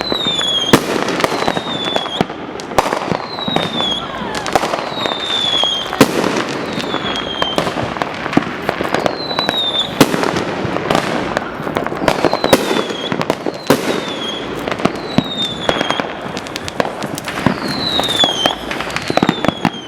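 Many fireworks going off at once from all directions: a dense, irregular run of bangs, pops and crackles. Short high whistles that fall slightly in pitch recur every second or two.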